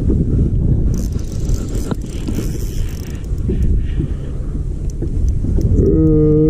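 Wind buffeting the microphone in a steady low rumble, with a few faint clicks. About six seconds in, a low pitched tone starts and holds steady.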